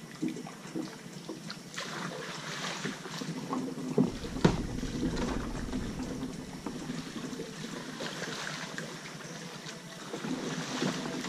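Kayak paddling: paddle strokes splashing in calm water, with two sharp knocks about four seconds in, followed by some low wind rumble on the microphone.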